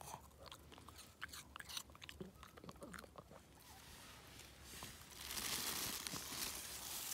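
A small dog crunching and chewing a hand-fed treat: a quick run of crisp crunches over the first few seconds, then a steady hiss from about five seconds in.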